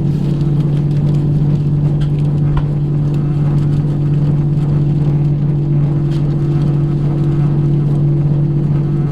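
Steady mechanical hum heard inside an Airbus A320 cabin, with two constant low tones over a low rushing noise.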